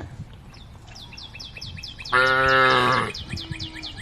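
A cow moos once, a held call of about a second starting about two seconds in. Small birds chirp in a rapid run of short, falling notes throughout.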